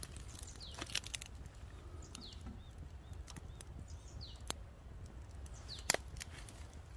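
Small wood campfire crackling, with scattered sharp pops, the loudest about a second in and near the end. A bird gives short descending chirps and small high notes over it.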